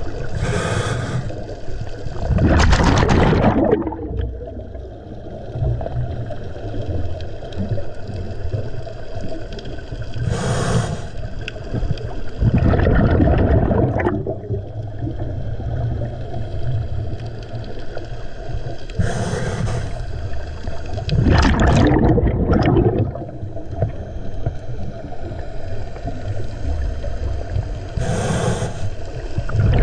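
Scuba diver breathing through a regulator underwater: each breath is a short hiss of inhalation followed by a louder burst of exhaled bubbles, four breaths about nine seconds apart, over a steady low rumble.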